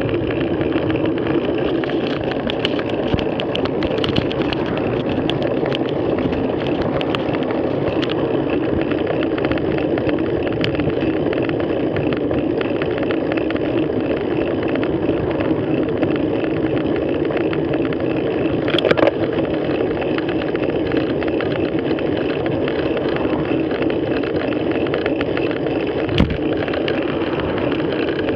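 Steady wind and road noise on a bike-mounted action camera's microphone while cycling, with a couple of sharp knocks, one about two-thirds of the way through and one near the end.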